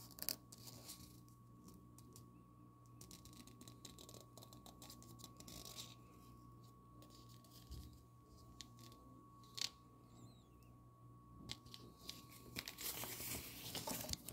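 Folded paper leaflet being handled and unfolded: soft rustling and crinkling with a few light taps, growing louder and denser near the end.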